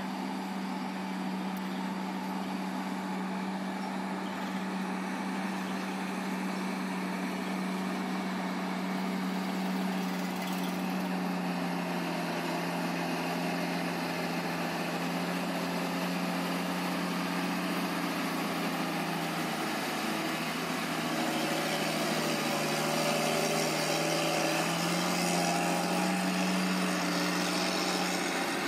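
Drone propellers humming at a steady pitch. The pitch dips slightly about two-thirds of the way through and then climbs back up.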